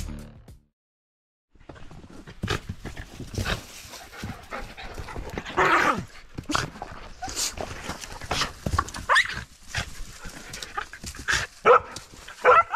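A pack of dogs panting and moving about on a dirt path, with a few short high whines near the end.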